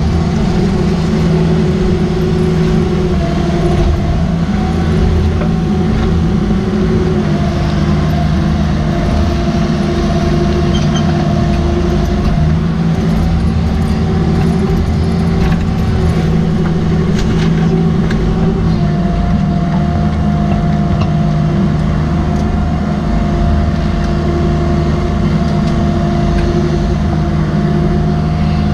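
Cat 305.5E mini excavator's diesel engine running steadily at working speed under digging load, heard from the operator's seat, with a steady hydraulic whine that shifts slightly in pitch as the boom and bucket move. Faint knocks and scrapes come from the bucket digging in rocky soil.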